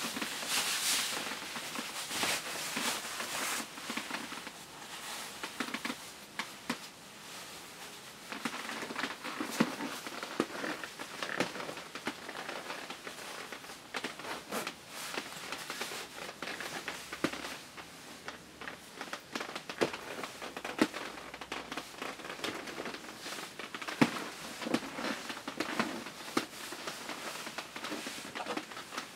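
Shiny nylon clothing rustling and crinkling as a satin-like football jersey is pulled on over a padded nylon jacket and trousers, with scattered sharp crackles from the fabric.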